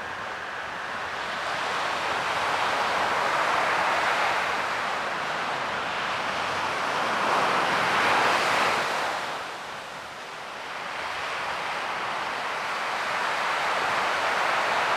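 Ocean waves breaking on the shore, the surf swelling and ebbing in slow surges, with a break around eight seconds in and a lull shortly after.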